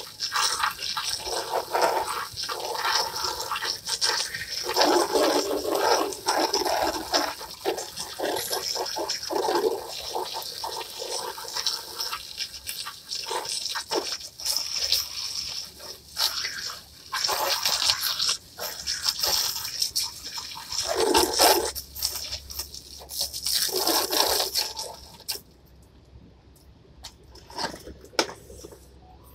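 Garden hose spray nozzle blasting water onto a plastic patio chair, a hissing spatter that swells and shifts as the jet moves over the seat and legs. The spray stops near the end.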